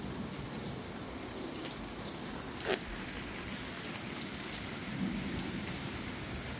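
Steady rain falling, with scattered drop ticks and one louder tick a little before halfway.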